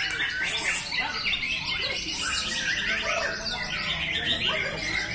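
Many caged white-rumped shamas (murai batu) singing at once: a dense, overlapping chorus of quick whistles and chirps that never lets up.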